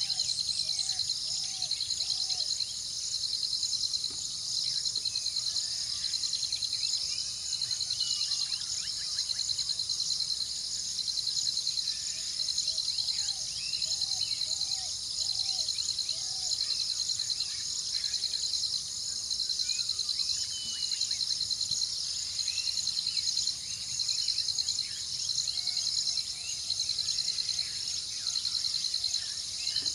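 A dense chorus of insects trilling high and steady, pulsing in repeated phrases of a second or two, with scattered faint bird calls.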